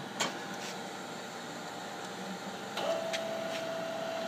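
Deckel FP4M universal milling machine running with a steady hum, with a few sharp clicks of its levers being moved. About three seconds in, a click and then a steady whine starts as the table power feed engages.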